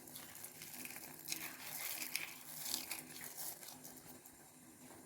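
Faint, irregular crinkling and rustling of hands handling ingredients over the pot.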